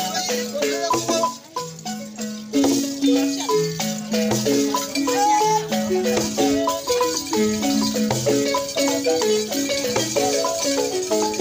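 Balafons (West African wooden xylophones) playing a fast, dense rhythmic pattern, with a shaken rattle hissing over them. The playing thins briefly about two seconds in, then picks up again.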